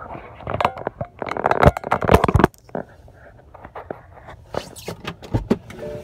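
Rustling, scraping and clicking of things being handled inside a car cabin, densest in the first two and a half seconds, with scattered clicks after that and a heavier thump near the end.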